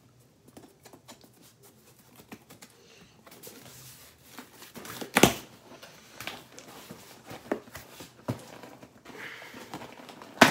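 Cardboard mailing box being pried open by hand, with tape pulling and the cardboard scraping, rustling and clicking, and one sharp knock about five seconds in.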